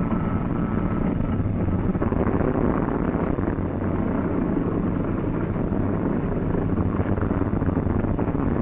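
C-47's left Pratt & Whitney R-1830 radial engine starting after the starter is meshed: the propeller turns over and comes up to speed, and the engine runs steadily.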